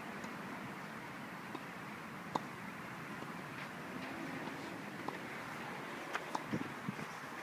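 Steady outdoor background hiss with a few light knocks and ticks scattered through it, one sharper tick about two seconds in and a small cluster near the end.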